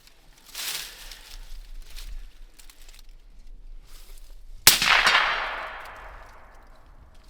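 A few soft rustles, then a single suppressed rifle shot about two-thirds of the way in, its report fading out over about a second and a half.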